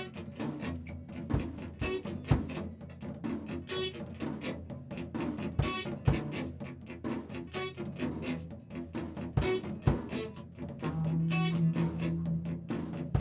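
Instrumental music: a steady rhythm of short percussive hits with a few deep drum strikes, over low strings, with a long low note held near the end.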